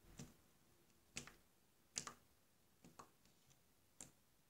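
Faint, irregular clicks of thick, wet slime being pressed and poked with the fingers, about six in all.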